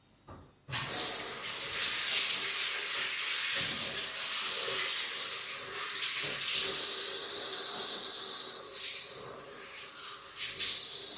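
A steady hissing rush begins abruptly a little under a second in, with a few brief dips near the end.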